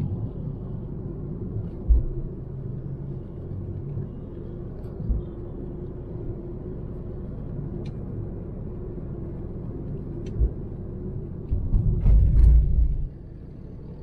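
Steady low rumble of a car being driven, engine and tyre noise heard from inside the cabin, with a few short low thumps and a louder rough stretch about twelve seconds in that stops suddenly.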